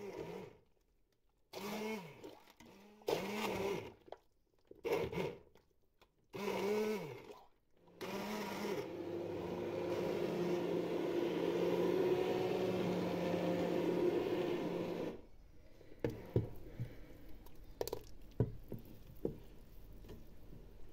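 Immersion blender pureeing chunks of pork fat in a stainless steel pot: several short pulses, each rising and falling in pitch, then a steady run of about seven seconds. After it stops, light knocks and scrapes from a wooden spoon stirring the pot.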